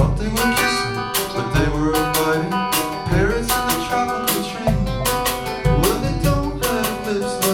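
Song music: plucked strings over a bass line with a steady beat.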